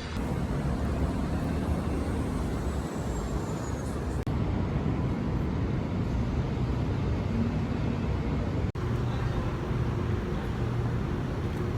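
Steady low rumble of road or vehicle noise, broken twice by abrupt cuts, about four and about nine seconds in.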